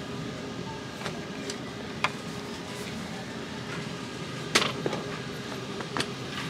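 Red plastic-and-wire shopping cart being pushed, its wheels giving a steady rolling rumble with a few sharp clanks and rattles, the loudest about four and a half seconds in.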